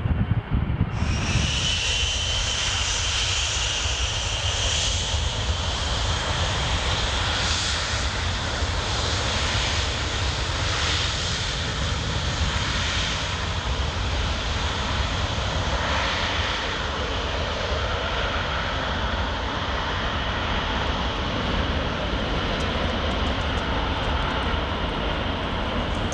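Jet airliner engines running with a high, steady whine over a broad rush and a low rumble; the sound starts suddenly about a second in.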